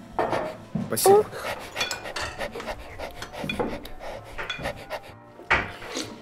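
A metal spoon clinking and scraping against a ceramic soup bowl, with noisy slurping and chomping of soup, in a string of short clicks and scrapes.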